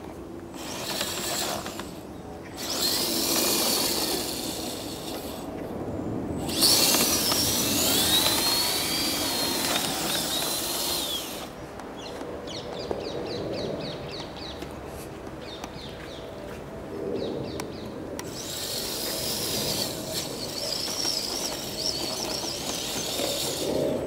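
Electric motor and gearbox of an RC 6x6 scale truck whining in spells as the throttle is worked. The pitch rises and falls, and the longest, loudest spell comes about a third of the way in.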